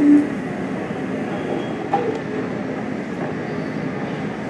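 Steady, muffled low rumble of an airport terminal interior, with jet aircraft noise coming through the glass. A brief low tone sounds at the very start, the loudest moment.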